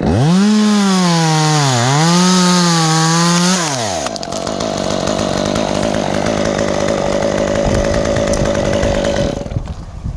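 Stihl chainsaw at full throttle, its pitch dipping twice as it loads up in the cut, then dropping away about three and a half seconds in. A rougher, steadier saw noise follows and cuts off near the end.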